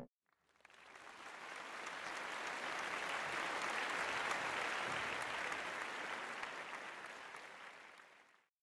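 Audience applause, fading in, holding and then fading out.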